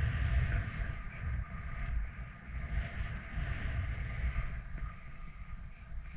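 Wind buffeting a head-mounted camera's microphone as a skier descends, an uneven low rumble, over the steady hiss of skis running through deep powder snow.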